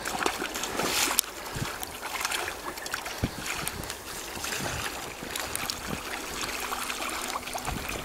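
Icy water in a hole cut in lake ice splashing and sloshing as a man lowers himself in from a ladder and swims, in irregular splashes that are loudest about a second in.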